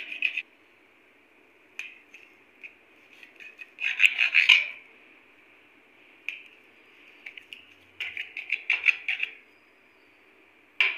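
Knife scraping and clicking against a steel plate while cutting soft dhokla into pieces. It comes in two bursts, about four seconds in and again around eight to nine seconds, with a few single clicks in between.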